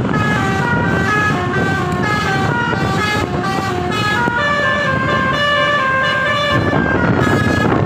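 Basuri telolet multi-tone horn on a tour bus playing a quick melody of short stepped notes, over a low engine and road rumble.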